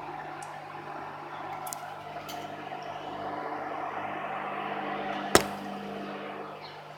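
Microwave oven running: a steady hum with a fan whir. One sharp click about five and a half seconds in.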